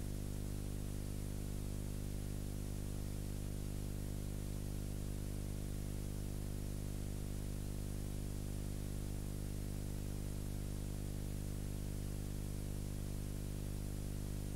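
Steady electrical hum with many overtones under a constant hiss, unchanging throughout: the noise floor of a transfer of silent film, with no sound from the scene itself.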